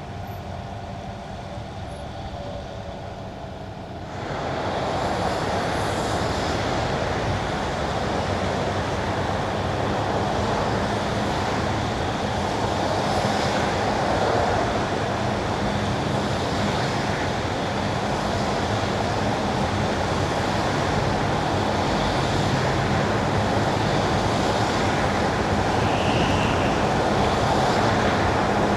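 Car tyres on wet winter asphalt with the car's running noise. For the first four seconds it is quieter, with a few steady hums. Then it jumps louder into a dense, steady rush that grows slightly toward the end.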